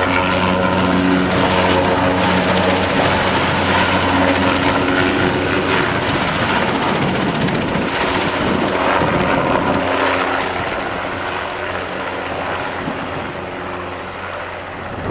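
Large lift helicopter flying with a rooftop HVAC unit slung on a long cable beneath it: a loud, steady rotor and engine drone that grows fainter over the last few seconds as it moves away.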